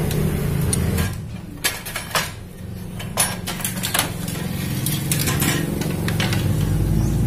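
Sharp metal clinks and taps as the steel gear-shift pedal of a Honda Supra X 125 is worked off its shaft by hand, over a steady low hum. The loudest clinks come about three and four seconds in, with a quick cluster near the end.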